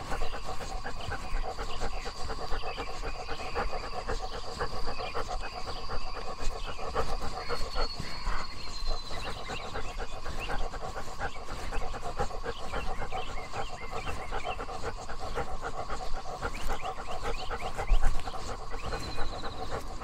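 A dog panting steadily and continuously.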